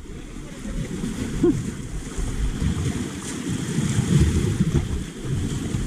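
Sea waves washing and surging over shoreline rocks, with wind buffeting the microphone in an uneven low rumble.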